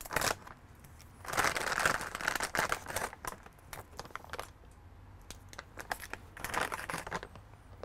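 Hands handling salvaged smartphones and a clear plastic bag: crinkling and rustling with small plastic clicks. It is loudest for a couple of seconds starting about a second in, and again briefly near the end.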